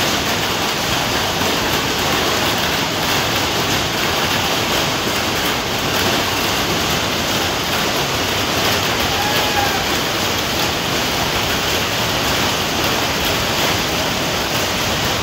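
Hail falling hard in a hailstorm: a dense, steady noise of hailstones pelting the ballpark's seats, field and tarp.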